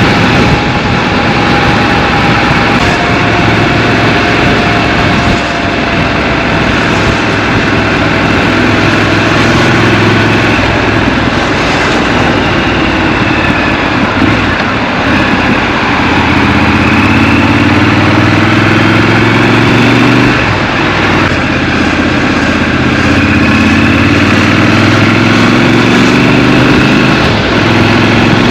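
Scrambler motorcycle engine running under way in city traffic, with steady wind rush. In the second half the engine pitch climbs twice under acceleration, each time dropping back as it changes up a gear.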